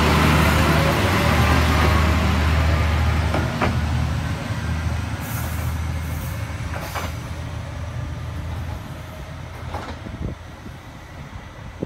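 Nagara 300 series single-car diesel railcar running away along the line: a low diesel engine drone with wheel and rail noise, loud at first and fading steadily as it moves off. A few sharp clicks stand out in the second half.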